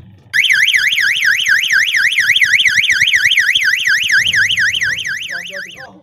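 12V electronic siren horn sounding a loud, fast warble: its pitch sweeps up and down about four times a second. It starts half a second in and fades out near the end.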